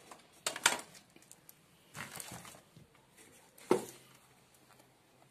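Handling knocks and clatter among framed glass paintings: a couple of sharp knocks about half a second in, a short clatter around two seconds and one loud knock with a brief ring near four seconds.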